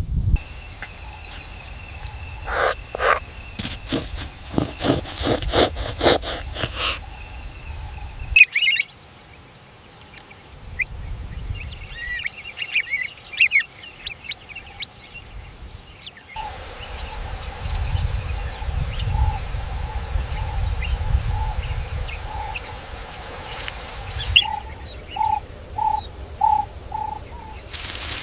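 Natural outdoor ambience of bird calls and insect chirping, cut abruptly into new soundscapes about every eight seconds. The first part holds steady high insect trills and a run of clicks, and near the end a short note repeats about twice a second.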